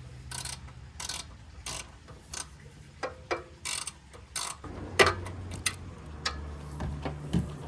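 Ratchet wrench clicking in repeated strokes, with a sharper metal clank about five seconds in, as the oil plugs on a small Honda engine's crankcase are loosened for an oil change.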